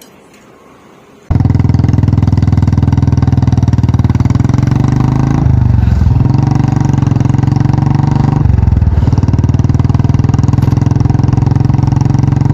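Royal Enfield Classic 500's single-cylinder engine running through a modified, very loud exhaust. It makes a fast, steady thumping that cuts in suddenly about a second in, and the revs dip and recover briefly twice.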